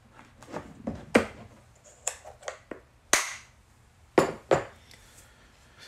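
Several separate sharp clicks and taps of small hard objects being handled, spread over about four seconds, the loudest about three seconds in.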